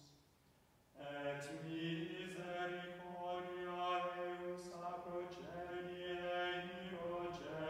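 Unaccompanied male plainchant from the Evensong office: sung on held notes that step up and down, resuming after a pause of about a second.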